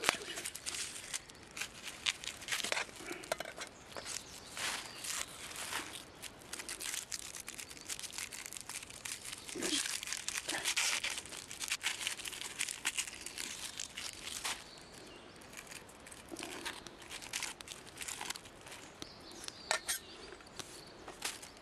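Irregular crinkling and rustling, like plastic packaging being handled and torn open, mixed with scattered light clicks and taps while vegetables are prepared for cutting.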